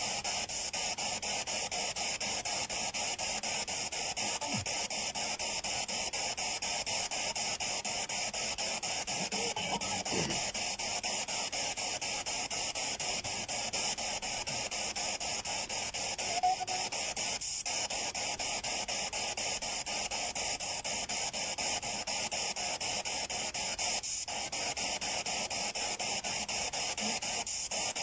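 Spirit box radio scanner running: a steady hiss of static, chopped rapidly and evenly as it sweeps through radio frequencies, with a couple of brief faint fragments of sound breaking through.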